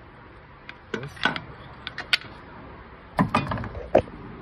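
Irregular metal clanks and knocks of a pry tool levering a 2006–2011 Honda Civic 1.8 alternator loose from its mounting bracket, the loudest knocks a little after three seconds and about four seconds in.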